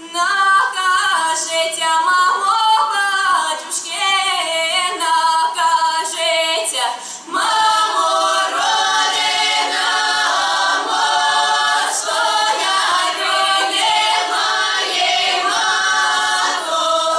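Women's folk ensemble singing a village folk song a cappella in several voices. The singing starts just after a short pause and grows fuller after a brief break about seven seconds in.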